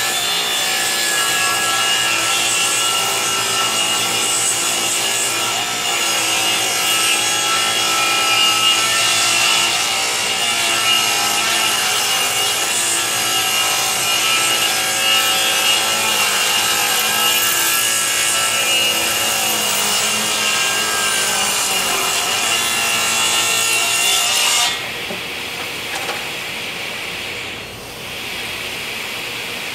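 Table saw ripping a long wooden board along the fence, the blade cutting with a steady whine. Near the end the cutting sound stops suddenly, leaving a quieter, even hiss from the shop vacuum hooked to the saw's dust port.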